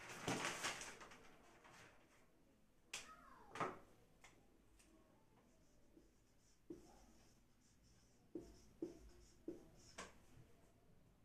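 Marker pen squeaking and tapping on a whiteboard in short, separate strokes as words are written, after a brief rustle in the first second.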